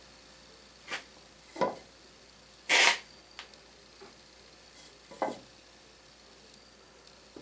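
A few short knocks and scrapes of a heavy lathe chuck being handled and settled onto a wooden cradle on the lathe bed. The loudest is a brief scrape about three seconds in.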